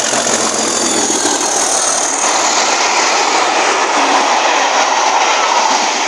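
Class 37 diesel locomotive passing at speed with its English Electric engine working hard, a high whistle falling in pitch as it goes by, then a long rake of Mark 1 coaches running past, loud and steady.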